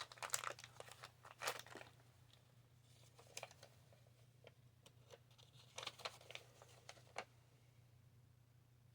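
Plastic parts bag crinkling and rustling in bursts, with small clicks as parts are handled.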